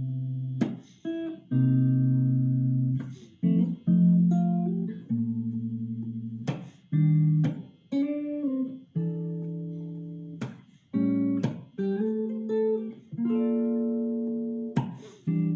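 Solo guitar playing a chord-melody arrangement: chords plucked and left to ring for a second or two each, with a melody on top and a few sliding notes.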